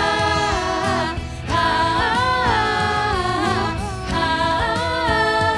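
Pop song playing: voices hold long sung notes, sliding between pitches, over a full band accompaniment.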